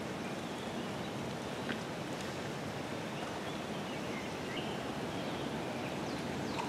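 Outdoor ambience: an even background hiss with a few faint, short bird calls.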